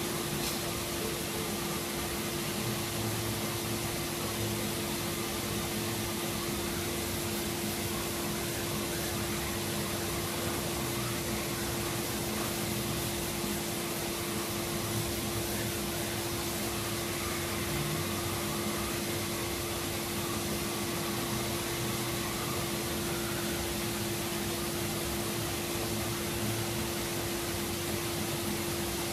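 Steady machine hum with an even hiss and a constant drone, like a workshop extractor or ventilation fan running, with faint scraping of a hand sanding block on body filler on a car's wheel arch.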